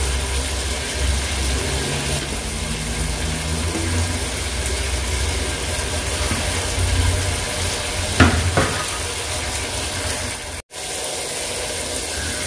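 Vegetables for aviyal cooking in an open pan on a gas stove: a steady sizzling hiss with a low rumble underneath. Two light knocks come about eight seconds in, and the sound drops out for an instant near the end.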